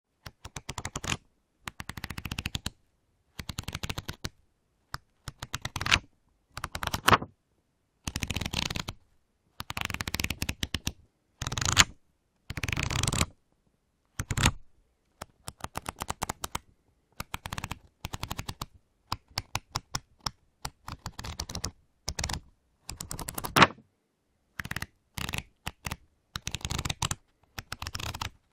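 Pages of a book flicked through rapidly with a thumb, a quick run of paper flaps each time, repeated many times with short pauses between runs. Some runs end in a louder snap as the last pages slap shut.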